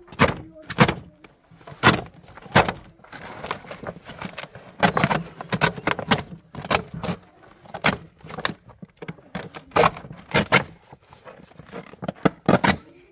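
Irregular sharp clinks and knocks, roughly one or two a second, with a stretch of scraping about three to five seconds in.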